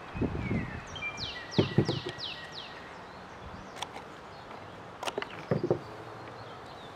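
Handling knocks and clicks as a phone and a thin cardboard box are handled, with a few snips of scissors through the cardboard and a thump as the scissors are set down on the cloth-covered table. About a second in, a songbird gives a quick run of about five down-slurred whistled notes.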